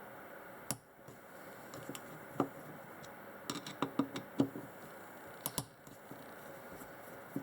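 Light clicks and taps of small metal carburetor parts and hand tools being handled during disassembly, with a quick run of them about halfway through.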